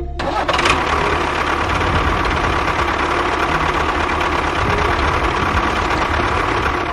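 A motor or engine running steadily for about seven seconds, cutting in and stopping abruptly.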